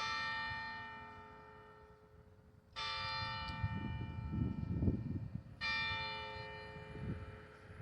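Church tower bell struck three times, a little under three seconds apart, each stroke ringing on and slowly fading.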